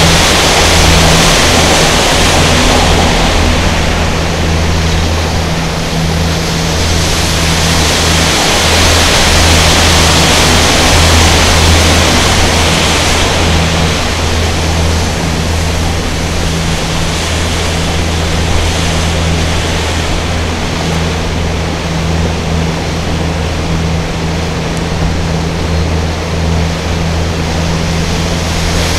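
A boat's engine running steadily, heard from on board as a loud low drone, over the rush of water along the hull as the boat moves downriver.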